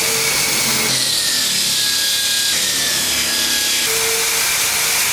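Bench-clamped electric drill spinning an abrasive wheel, with a wooden chair part held against it: a steady grinding hiss of sanding off the old finish, over a faint motor whine that drops slightly in pitch.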